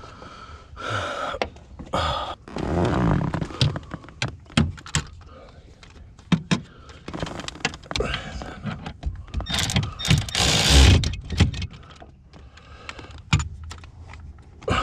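Hand tools and metal car parts clinking, knocking and rattling as they are worked, with two longer, louder stretches of scraping noise, about three seconds in and about ten seconds in.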